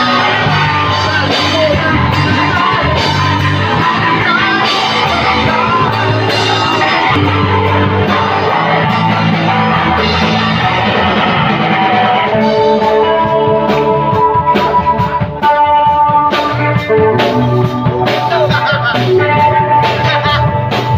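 Live rock band playing loudly: guitars and a drum kit, with some singing. About halfway through, the playing changes to clear held guitar notes over sharp drum hits.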